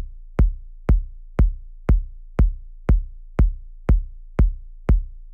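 Electronic kick drum playing a straight four-on-the-floor beat, about two deep, booming kicks a second, with nothing else in the pattern yet.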